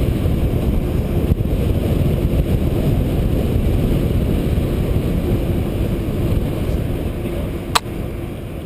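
Wind rushing over a bike-mounted camera's microphone while a mountain bike rolls along tarmac: a steady low rumble, with one sharp click near the end, and the noise fading away in the last second.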